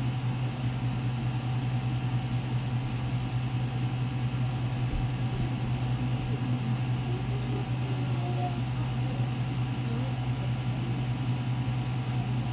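A steady low hum that does not change, with faint distant voices under it.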